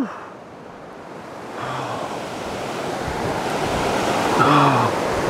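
Wind rushing over a handheld microphone, swelling gradually louder, with two short low grunts, one near 2 seconds in and one near the end.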